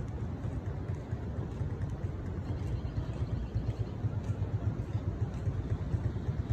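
Wind buffeting the phone's microphone: a low, fluttering rumble that grows stronger in the second half.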